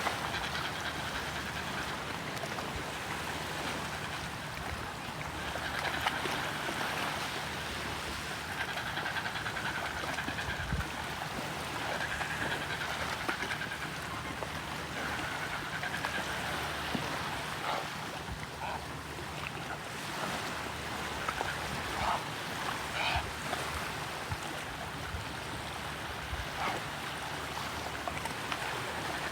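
Steady wash of sea water, with a low steady hum underneath and a few short sharp sounds in the second half.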